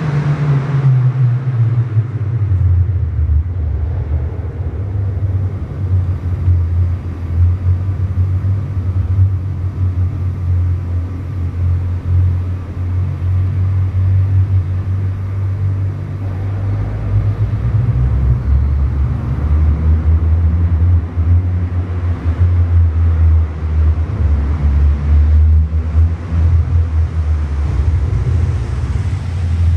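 1992 Volkswagen Corrado SLC's VR6 engine through a TT stainless cat-back exhaust, a steady low exhaust rumble as the car drives out of sight inside a concrete parking garage. The pitch falls over the first couple of seconds, and the low rumble grows stronger about halfway through.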